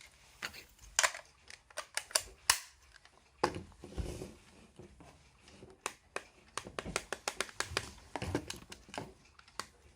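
A small alarm clock and its plastic packaging being handled: irregular sharp clicks and taps with short crinkling rustles, the clicks coming thick and fast from about six to nine seconds in.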